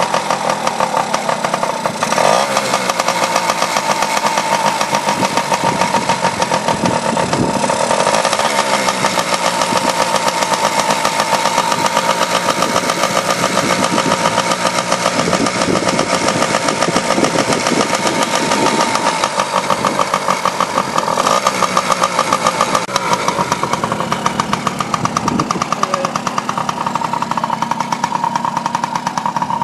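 Rebuilt big-bore 1986 Yamaha BW80's small single-cylinder two-stroke engine running with a fast, even firing beat, revved up and down several times. The owner thinks it may still need a new carburettor.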